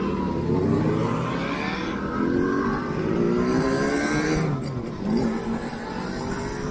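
Two-stroke motorcycle engines revving and accelerating, several rising engine notes overlapping one after another.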